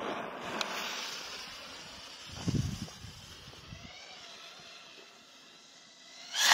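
Shell rocket's fuse being lit with a hissing lighter flame, then a faint hiss as the fuse burns on the launch stand, with a few low thumps about two and a half seconds in. At the very end the rocket's motor ignites and its noise rises sharply.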